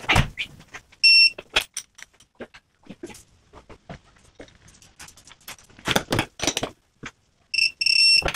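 AC Delco digital torque adapter beeping a high electronic tone: one short beep about a second in and two beeps near the end, the signal that the bolt has reached its preset torque. Between them, clicks and metallic clinks of the wrench working the bolt.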